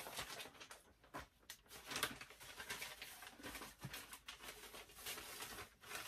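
Sheets of newspaper rustling and crinkling in irregular bursts with sharp crackles as they are pulled apart, folded and pressed into place.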